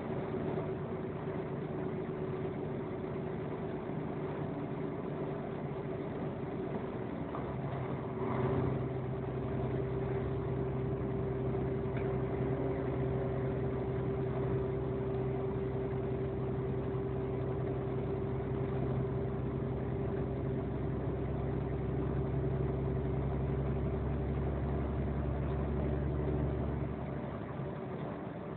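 Steady drone of a vehicle driving on a wet road, heard from inside: engine tones over road noise. A deeper engine hum comes in about seven seconds in, with a short louder swell just after, and drops away shortly before the end.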